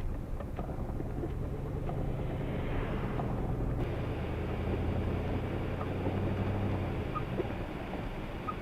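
Snowplow truck driving past, its engine droning steadily before fading near the end.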